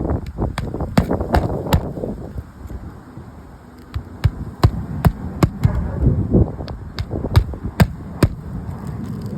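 Hammer driving roofing nails into asphalt shingles: runs of sharp strikes about two and a half per second, with a pause of about two seconds near the start.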